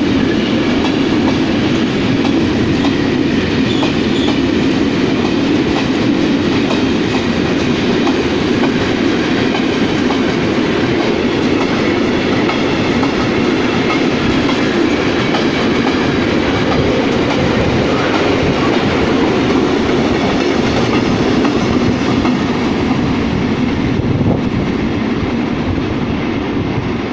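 Freight train of empty flat wagons rolling steadily through a station, a loud continuous rumble with the wheels clacking over the rail joints.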